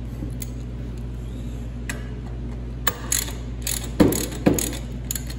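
Ratchet and socket clicking and knocking as the ring gear screws of an Arctic Cat Team drive clutch are worked by hand. Sparse light clicks give way to a run of sharper metal knocks in the second half, over a steady low hum.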